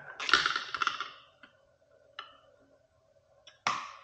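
Metal clicking of a 10 mm wrench tightening the bolt on an e-bike's front fender mount: a run of quick clicks and rattle lasting about a second, then a single click, then one sharper click near the end.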